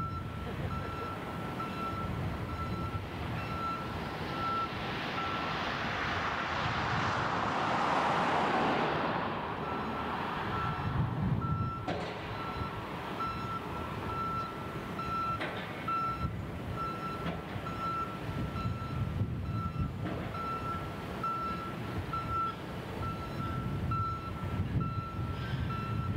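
A heavy site vehicle's reversing alarm beeping over and over at one pitch, over the low rumble of a running diesel engine. A broad hiss swells and fades between about five and ten seconds in.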